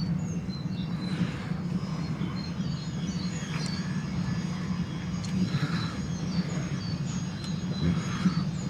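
Steady low outdoor rumble, with small birds chirping in short high calls on and off throughout.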